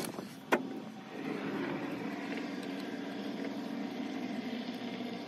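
A single sharp click about half a second in, then a steady mechanical hum with a faint hiss.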